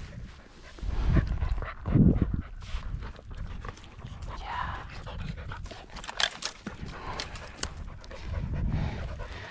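Pointing dog panting, with rustling and crackling and a couple of low thumps about a second and two seconds in.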